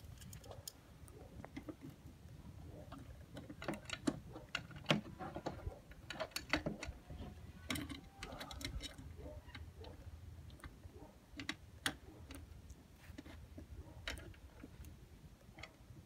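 Irregular small metallic clicks and taps as a Phillips screwdriver turns screws into a steel locking fuel door, with a cluster of sharper clicks in the middle and another single sharp click near the end.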